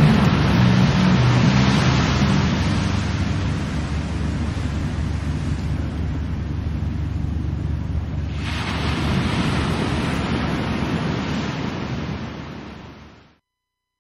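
Ocean surf washing in, with a wave swelling up about eight seconds in, as the last low notes of an electronic music track die away in the first two seconds; the surf fades out near the end.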